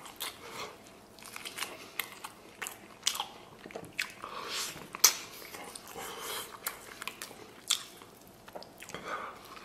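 Close-up mouth sounds of a man biting and chewing braised beef off a beef bone: irregular sharp clicks and short wet smacks as he gnaws and chews.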